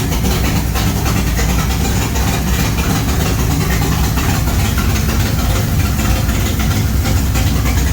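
LS-swapped stroker V8 in a Chevrolet Monte Carlo SS idling steadily, running again after its wiring and parts were replaced following an engine-bay fire; the owner finds it sounding good.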